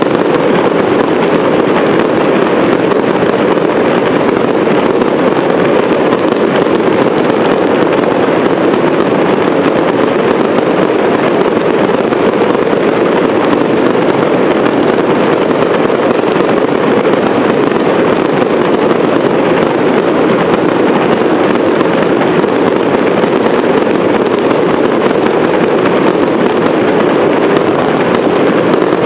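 Professional fireworks display: a dense, unbroken barrage of crackling and popping from bursting shells and ground-fired effects, loud and steady with no pauses.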